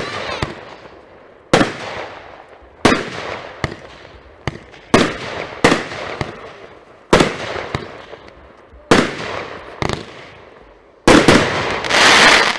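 Tropic Fire 'Black Queen' 24-shot firework cake firing shot after shot: about a dozen sharp bangs, roughly one a second, each followed by a fading tail as the stars burst. The loudest part comes near the end, a dense finale burst lasting about a second and a half.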